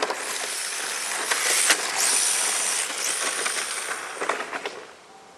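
RC drift car with a brushless motor sliding across asphalt on hard drift tyres: a loud hiss of tyre scrub with scattered ticks and a high whine. It swells in the middle and dies away about three-quarters of a second before the end.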